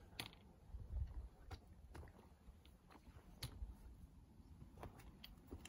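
Faint footsteps on a hiking trail: a few soft, scattered clicks and crunches about a second apart.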